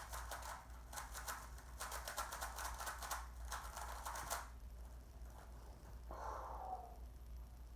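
A Rubik's cube being turned quickly by hand: a dense run of light plastic clicks for about four seconds, then it stops. A brief soft sound follows a little later.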